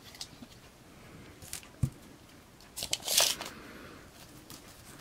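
Light handling noises as a steel tape measure is set out along a plastic figurine: a few small clicks and a soft knock, then a short scraping rustle about three seconds in.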